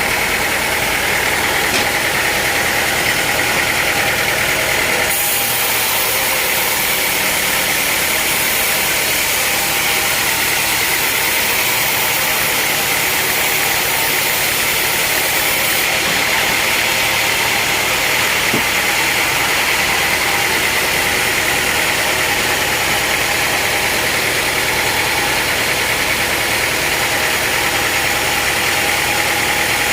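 Sawmill machinery running steadily with a constant engine-like drone. A brighter hiss comes in about five seconds in and drops back around sixteen seconds.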